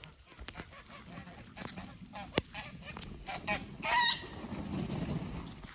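Geese giving a series of short honks, the loudest and longest about four seconds in.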